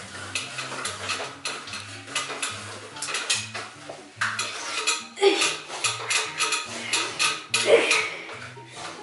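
Aluminium stepladder clanking and rattling as a person leans on it, grips it and climbs it: a quick, uneven run of sharp metallic clinks and knocks, busiest in the second half.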